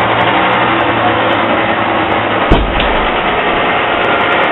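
Vehicle engine running steadily, with a single sharp thump about two and a half seconds in.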